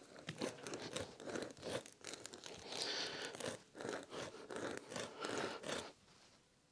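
Spiral reaming tool from a tyre plug kit being twisted and worked in and out of a puncture in a van tyre to enlarge the hole: irregular scraping and crunching of steel against rubber, stopping about six seconds in.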